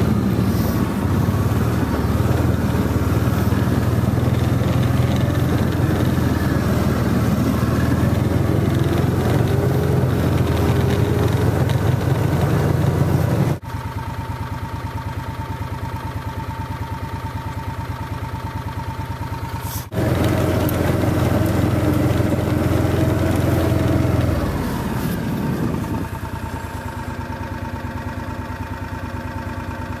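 John Deere Gator utility vehicle's engine running as it drives through snow. The sound is loud, with some rising pitch early on. It drops abruptly to a quieter, steadier hum about 14 seconds in, comes back louder about 20 seconds in, and settles to the quieter hum again near 25 seconds.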